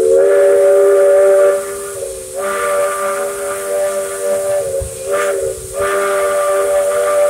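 Steam locomotive Dixiana's chime whistle blowing a loud chord of several notes in four blasts: long, long, short, long. That is the standard whistle signal for approaching a road crossing.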